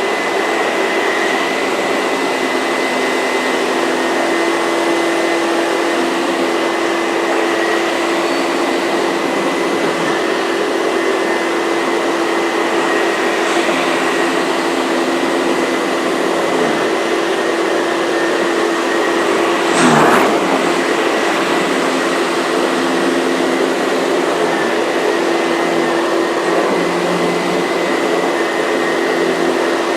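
Miele S234i canister vacuum running with a Sebo ET-1 electric powerhead while vacuuming a rug: a steady motor and airflow noise with a constant whine. About twenty seconds in there is one brief knock.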